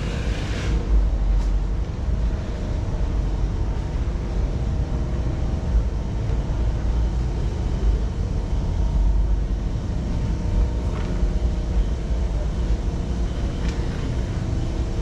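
Steady low rumble of movement through a large store, typical of a camera being carried or a shopping trolley rolling over a hard floor, with a faint steady hum underneath.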